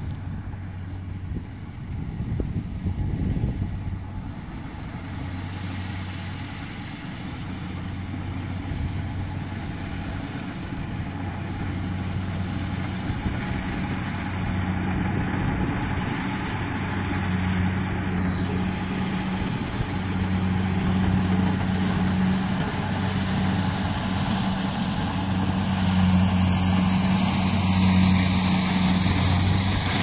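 Kubota DC-70 rice combine harvester's diesel engine running with a steady low hum, growing gradually louder.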